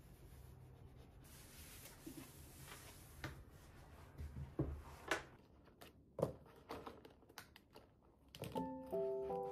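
Soft cloth-wiping rub on a desktop, followed by scattered light clicks and taps as objects are handled and set down on the desk. Gentle music with held notes comes in about a second before the end.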